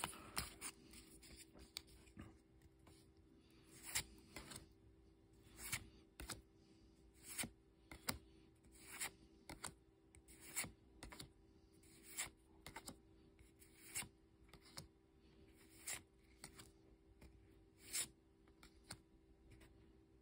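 Pokémon trading cards sliding against one another as a pack's cards are flipped through one at a time: a faint, brief rub about once a second, evenly paced.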